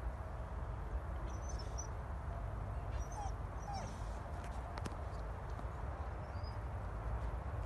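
Wind rumbling on the microphone, with two brief falling yelps from a dog about three and four seconds in. A few faint high chirps can also be heard.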